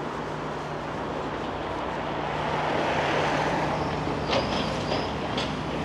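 Street traffic: a vehicle passes about halfway through over a steady low engine hum. Two short, sharp clinks come near the end.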